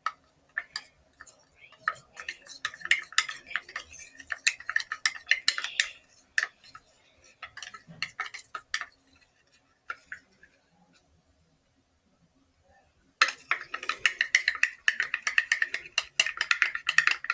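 A toothbrush stirring and scraping quickly around a small perfume-bottle cap, mixing thickening soap-and-toothpaste slime: rapid clicking and scraping in two spells, with a pause of a few seconds in the middle.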